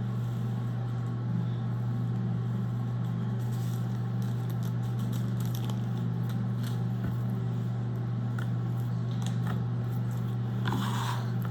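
A steady low hum throughout, with faint scattered crackles and clicks as slime mixed with foam balls is kneaded and squished.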